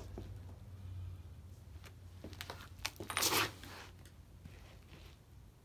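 A few faint clicks, then one brief scraping rustle a little after three seconds in, over a faint low hum.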